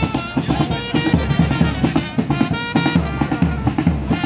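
Music with a quick, steady drum beat and a melody over it.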